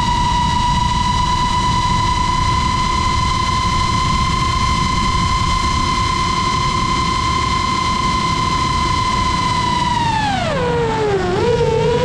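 FPV drone's electric motors and propellers whining at a steady high pitch under constant throttle. About ten seconds in the pitch drops sharply as the throttle is cut for a dive, then climbs again unsteadily, over a low rumble of wind on the microphone.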